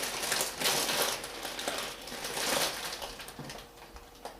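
Plastic building-block pieces being handled and pressed together: irregular clicking and rattling in clusters, dying down toward the end with one last click.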